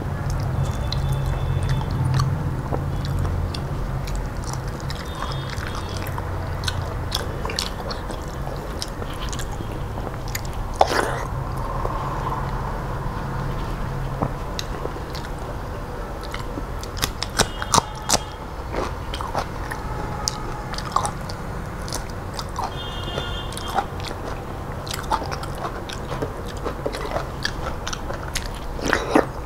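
Close-miked chewing and mouth smacking of a person eating dal and rice by hand, with many short wet clicks throughout and a steady low hum underneath.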